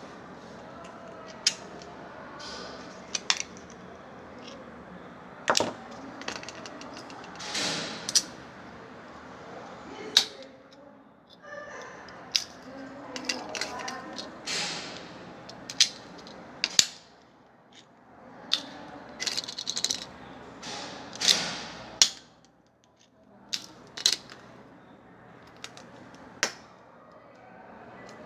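Hard plastic EAS anti-theft security tags handled and set down on a surface: irregular clicks, clacks and light rattles, some louder knocks among them.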